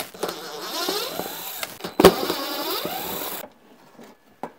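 Cordless drill spinning screws out of a plastic underbody shield, its motor whirring up and down in pitch with a sharp click about two seconds in. It stops abruptly about three and a half seconds in, leaving a few faint ticks.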